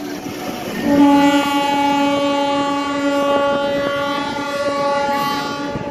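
Train horn sounding a long single-pitch blast, broken briefly near the start and stopping near the end, over the rushing noise and wheel clatter of passenger coaches passing close by.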